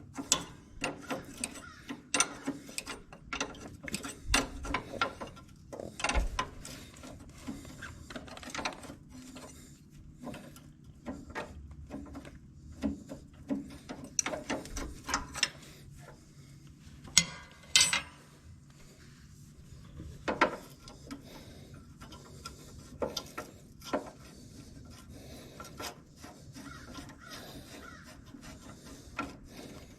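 Hand tools working on a tractor's metal hardware: irregular clicks, clinks and scrapes of a wrench turning and working loose nuts and bolts, with a few louder knocks a little past the middle.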